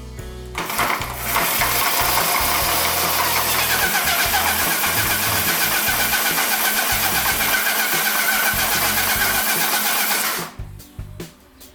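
A loud machine runs steadily for about ten seconds with a dense hiss and a wavering whine, starting abruptly about half a second in and cutting off near the end, over background music.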